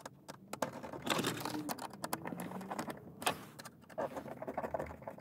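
Irregular small clicks and scrapes of a Torx T20 screwdriver turning a screw into the plastic air-vent frame in a car dashboard.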